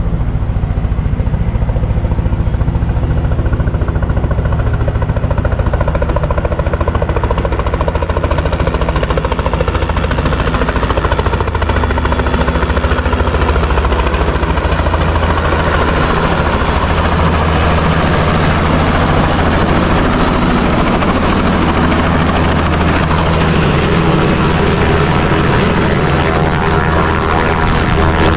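Helicopter coming in to land, its rotor beat and engine noise loud and continuous.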